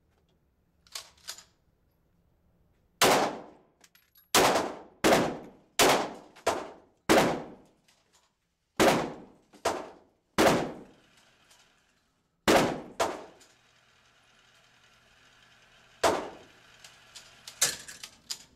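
Glock 34 9mm pistol fired about a dozen times at an unhurried pace, each shot a sharp crack with a ringing tail off the walls of an indoor range. Two fainter pops come about a second in.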